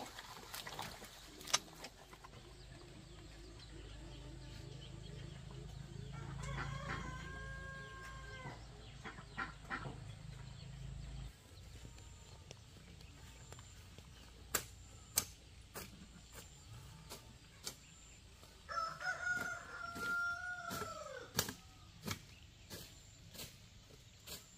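Rooster crowing twice, each crow a held call of about two seconds that drops in pitch at the end. Scattered sharp clicks and knocks sound around it, with a low rumble in the first half.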